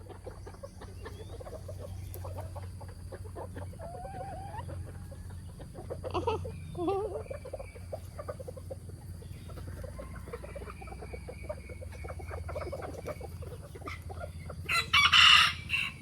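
Bantam chickens clucking with short calls, and one short, loud, harsh sound near the end.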